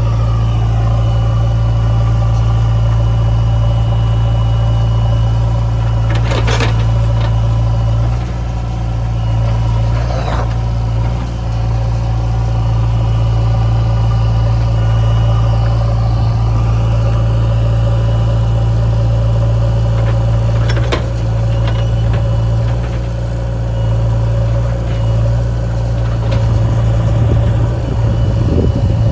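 Diesel engine of earth-moving machinery, a backhoe loader or tractor, running steadily with a deep hum and a thin high whine. A few sharp knocks cut in, around a quarter, a third and two-thirds of the way through.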